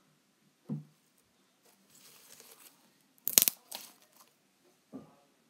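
Foam squishy toys handled and set into a plastic bowl: soft thuds, faint rustling, and a brief loud crackle about three and a half seconds in.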